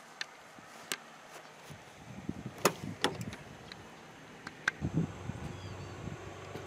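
A handful of sharp clicks and knocks over a faint background, the loudest a little under three seconds in and just after three seconds.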